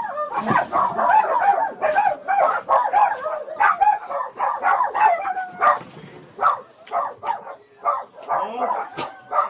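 A crowd of dogs barking and yapping at once, a continuous overlapping chorus of short, high calls from many dogs kept together.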